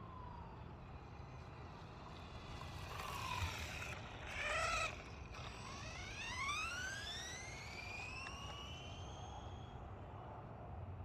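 Brushless electric motor of a modified 1/14-scale RC car whining. The whine wavers loudly about four seconds in, then rises steadily in pitch for several seconds as the car speeds up.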